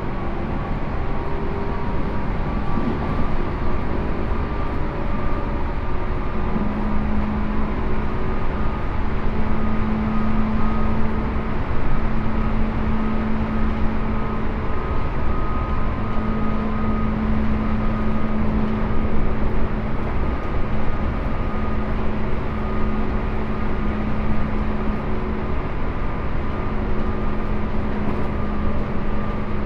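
Running sound inside a Tobu 10000-series field-chopper electric train: a steady traction-motor hum and the rumble of wheels on rail. The pitch holds level throughout, as at a steady running speed.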